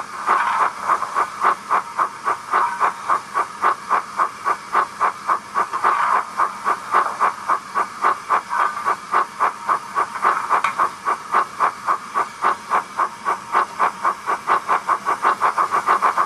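Model steam locomotive sound from a DCC sound decoder's small speaker: a steady run of hissing chuffs, several a second, getting a little quicker near the end.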